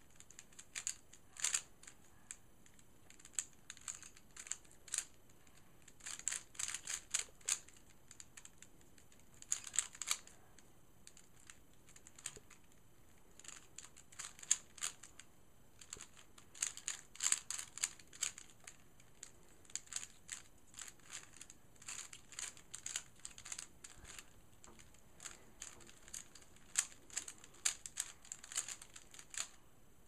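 Plastic 3x3x3 puzzle cube being turned quickly by hand, its layers clicking in irregular flurries with short pauses between.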